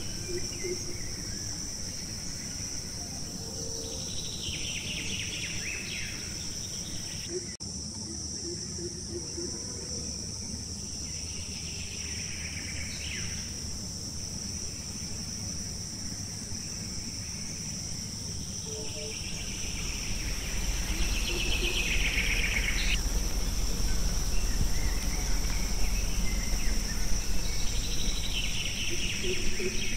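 Forest ambience of insects: a steady high drone, with a pulsing, trilling call that swells and falls away about every eight seconds. A low rumble comes in about two-thirds of the way through and runs on as the loudest part.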